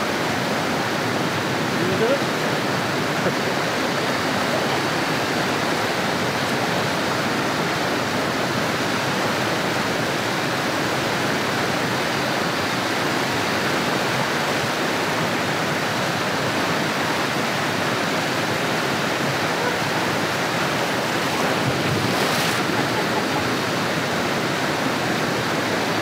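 Steady rush of a jungle waterfall and its cascading pools, an even hiss of falling water, with a brief louder swell a little before the end.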